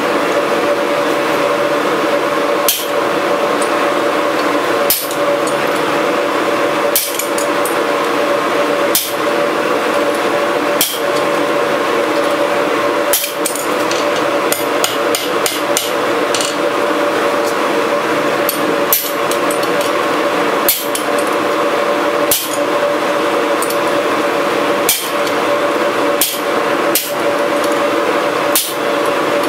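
Hand hammer striking hot steel bar stock on an anvil: separate sharp blows every second or two, with a few quick runs of strikes. A steady roar from the forge runs underneath.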